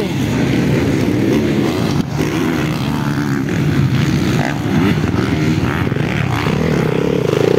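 Several motocross dirt bikes racing, their engines revving up and down over one another. Near the end one bike comes closer and its engine grows louder.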